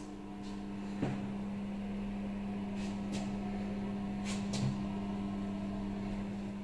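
A steady low hum, with a sharp knock about a second in and a few light taps like footsteps after it.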